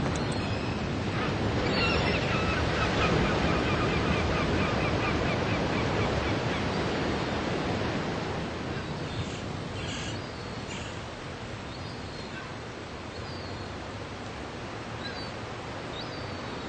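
Sea surf washing on the shore, louder in the first half and easing after about eight seconds, with seagulls calling over it: a quick run of repeated calls in the first few seconds, then a few short calls later.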